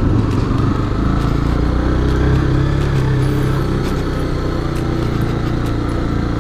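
Honda CB300R single-cylinder engine running steadily under way on a gravel road, with scattered sharp ticks from loose stones under the tyres.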